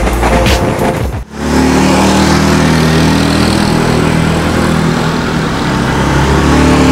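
Intro music that cuts off about a second in, followed by the steady hum of motor vehicle engines at a railway level crossing, with a motorcycle riding over the crossing.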